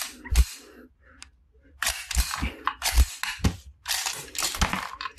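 Metal slide of a Walther P99 9 mm blank pistol racked by hand, a couple of sharp clicks near the start. The new, dry pistol is not yet feeding the round smoothly. Then several short bursts of plastic wrapping rustling as the gun is handled and set down.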